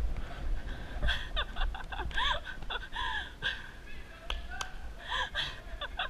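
Indistinct talking from across a large, echoing space, with no clear words, over a steady low rumble and a few sharp clicks.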